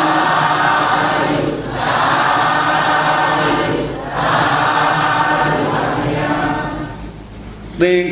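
A group of voices chanting together in unison, Buddhist recitation in three phrases with short breaths between them. It fades near the end as a single man's voice comes in.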